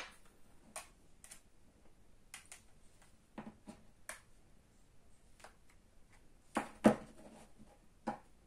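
Scattered small clicks and taps of hand tools working at an iPod Video's case while it is being pried apart, with a couple of sharper clicks about seven seconds in.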